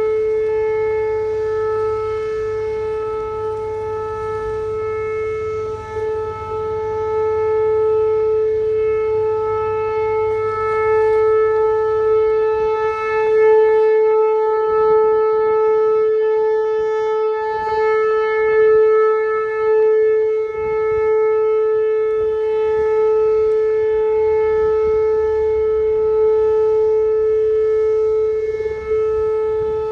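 Outdoor tornado warning siren sounding a loud, steady tone held at one pitch during its weekly test.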